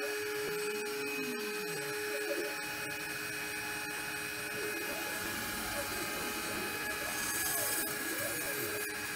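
Homemade five-axis CNC router cutting XPS foam. Its axis motors whine in glides that rise and fall as the head speeds up and slows down, over a steady hiss. A steady tone stops a couple of seconds in and comes back near the end.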